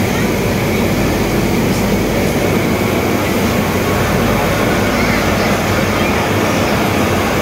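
Steam locomotive standing close by and inching up to its coaches for coupling, giving a loud, steady hiss and rumble with no distinct clank.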